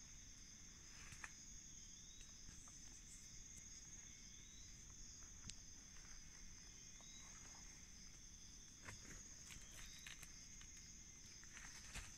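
Faint, steady high-pitched chorus of forest insects, with a short rising chirp repeating every two to three seconds and a few faint clicks.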